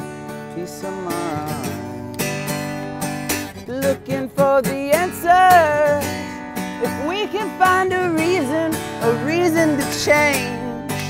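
Acoustic guitar being strummed in chords, with a wordless sung melody gliding over it.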